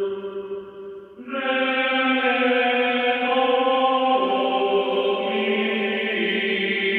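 Chant-like drone of long held tones. The sound thins about a second in, then a fuller sustained tone joins over the steady low drone.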